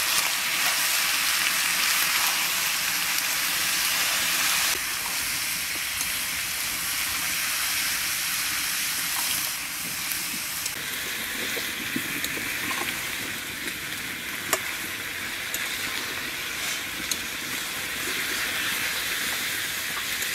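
Raw pumpkin pieces sizzling in oil in an aluminium kadai as they are sautéed with spices, stirred with a metal spatula. The sizzle gets softer at about 5 s and again at about 10 s, and the spatula clicks sharply against the pan a few times in the second half.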